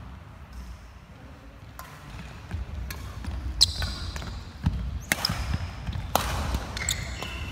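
Badminton rally: racket strings striking the shuttlecock in a quick series of sharp hits from about two seconds in. Court shoes squeak on the wooden floor between the hits, over the thud of footwork.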